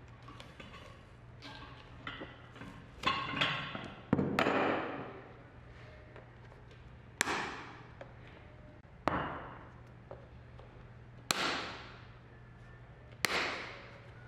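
Hand tools working the stacked leather heel of a welted shoe, nail pincers and a knife prying and cutting at the heel lifts. Small clicks come first, then six sharp scraping strokes about two seconds apart, each fading within about a second.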